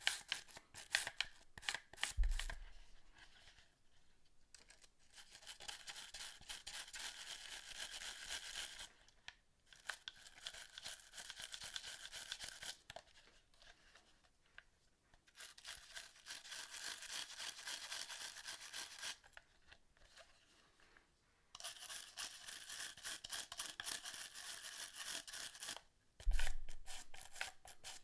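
A brush scrubbing hard plastic in four spells of a few seconds each, with short pauses between them. A dull thump comes about two seconds in and another near the end.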